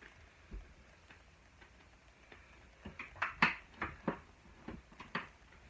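A quick run of sharp, irregular knocks and taps, about seven in two seconds with the loudest near the middle, from hand work fitting window trim.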